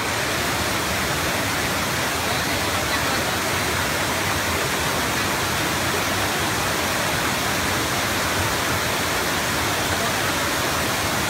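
Wide, stepped cascade waterfall, water pouring steadily over the rock tiers into a river pool, a continuous even rush with no breaks.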